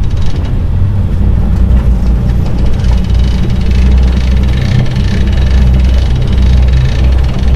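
Boat engine idling steadily as the boat sits on its trailer at the ramp.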